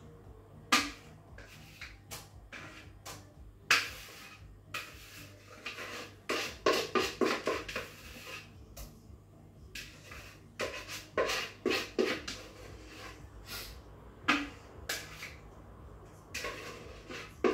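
Spatula scraping and knocking against a mixing bowl as thick cake batter is scraped out into a springform pan. Irregular sharp knocks, one about a second in and another near four seconds, with quick runs of short scrapes in the middle and again near the end.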